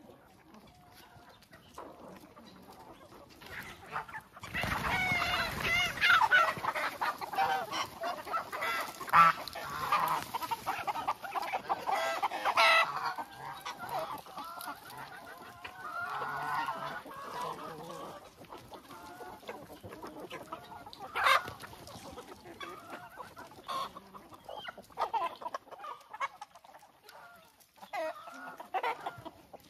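A flock of chickens clucking, with a loud, frantic outburst of squawking from about four and a half seconds in until about thirteen seconds, when one hen is grabbed by hand and held. Lighter clucking and occasional calls follow.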